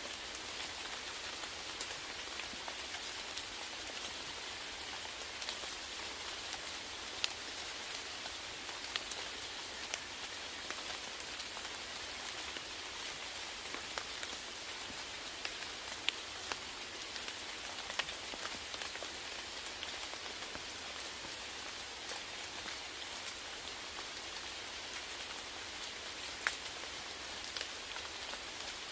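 Steady rain with individual drops ticking and pattering sharply on a hard surface.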